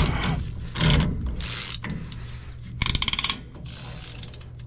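Ratchet wrench with a spindle nut socket clicking as it tightens the rear axle spindle nut, with handling knocks, and a fast run of clicks about three seconds in.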